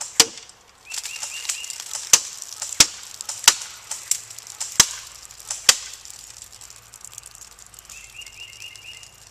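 CYMA AK-47 airsoft electric gun fired in single shots: about six sharp reports at uneven spacing over the first six seconds, the first just after the start.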